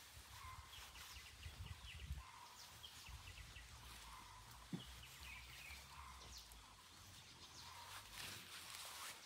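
Quiet rural ambience: small birds chirping faintly and often, over a low rumble, with one short knock a little under five seconds in.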